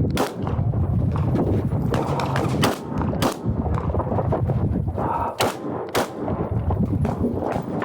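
Glock 19 9mm pistol shots during a timed course of fire: one shot just after the start, then two pairs of quick shots about half a second apart, over a steady low rumble.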